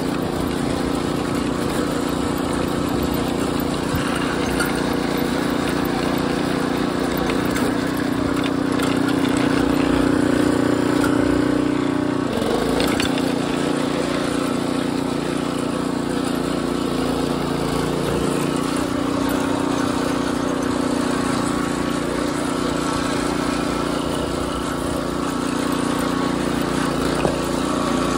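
Harbor Freight Predator 212 single-cylinder engine on a Wheel Horse garden tractor, running steadily as the tractor is driven. About twelve seconds in, the engine speed dips briefly and then picks back up.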